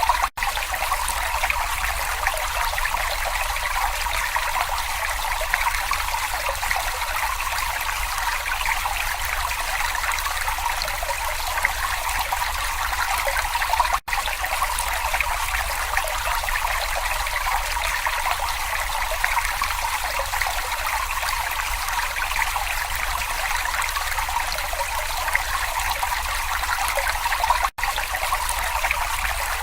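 A brook babbling and trickling steadily. The sound cuts out for an instant three times.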